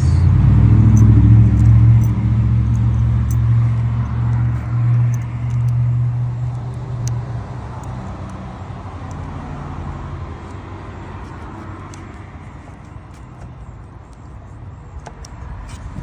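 A motor vehicle engine running close by: a low, steady drone that is loud for the first several seconds, then fades away. A few light metallic clicks come from the battery terminal hardware being handled.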